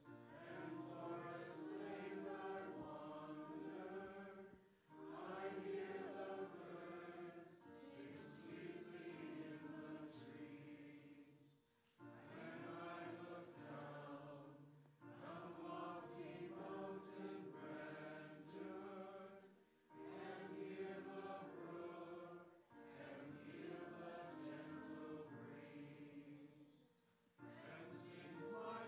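A group of voices singing a song, sung in phrases of a few seconds each with brief pauses between them.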